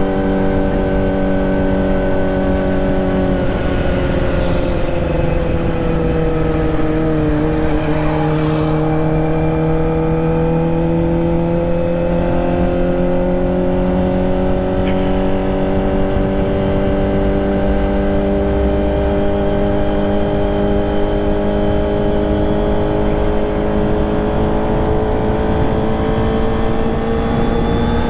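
Kawasaki ZX-25R's 250 cc inline-four running through a Prospeed Shark high-mount exhaust under way. The revs dip briefly a few seconds in, then climb slowly and steadily, with wind and road noise underneath.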